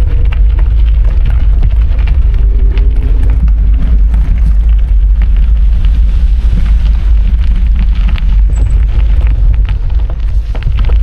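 Wind buffeting the microphone of a camera carried on a moving bicycle: a loud, steady low rumble, with scattered small clicks and rattles.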